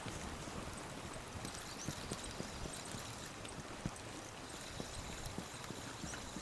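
River water running steadily, an even rushing noise with a few faint clicks through it.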